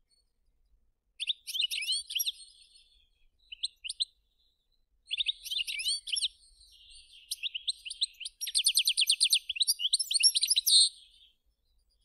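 European goldfinch singing: a short twittering phrase, a few scattered notes, then a longer run of liquid twitters with a fast, even trill near its end.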